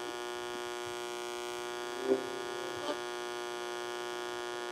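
Steady mains-type hum, a buzzy stack of tones, from the speaker of a one-chip AM radio tester hooked to the Grunow's antenna coil and tuning condenser, heard between stations as the dial is turned. Two faint ticks come about two and three seconds in.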